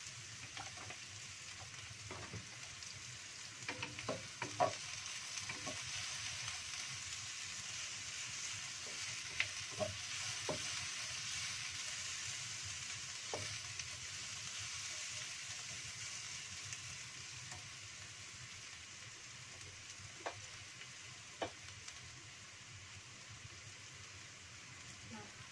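Sliced shallots sizzling in oil in a non-stick wok, stirred with a wooden spatula that clicks and scrapes against the pan now and then. The sizzle swells in the middle and eases off near the end.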